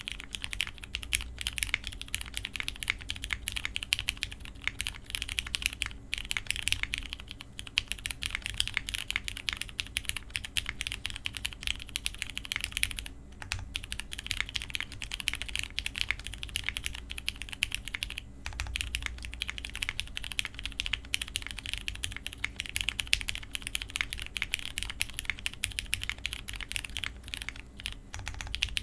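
Custom Vast60 60% mechanical keyboard being typed on steadily and fast: lubed and filmed Hyperglide Cherry MX Brown tactile switches on a polycarbonate plate, under GMK doubleshot keycaps. There are brief pauses about six, thirteen and eighteen seconds in.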